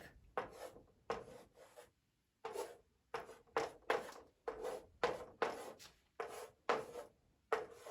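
Writing by hand: a run of short strokes, about two a second, with a brief pause about two seconds in, as the Cyrillic letters are written out.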